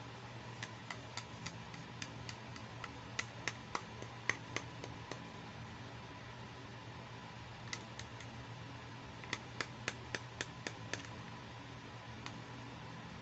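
Light, quick plastic clicks and taps as a small pink plastic toy hair dryer is handled and turned over in the fingers, coming in two irregular runs, over a faint steady hum.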